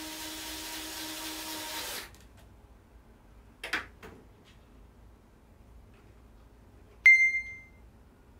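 A small electric motor appliance runs steadily with a low hum and a higher whine, then cuts off about two seconds in. A short rustle follows in the middle. Near the end comes a single sharp, high ding that rings briefly.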